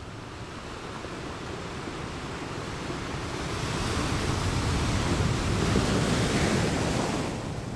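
Ocean surf: a wave swells over a few seconds, breaks and washes in, then falls away near the end, with wind buffeting the microphone.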